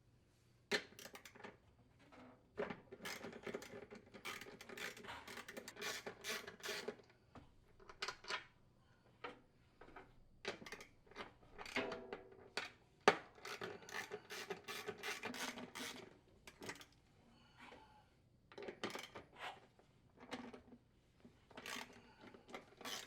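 A socket wrench on a 1/2-inch socket ratcheting in repeated short bursts of rapid clicks as screws holding a washer's inner tub to its mounting hub are backed out, with a few sharp metal knocks between bursts.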